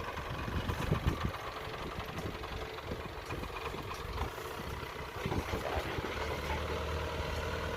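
Kobelco excavator's diesel engine running steadily, with a few knocks about a second in and again around five seconds.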